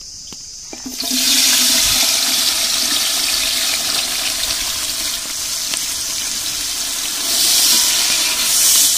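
Sliced onions hitting hot oil in a large aluminium pot, sizzling loudly as they fry. The sizzle starts suddenly about a second in, holds steady, and swells again near the end as a ladle stirs them.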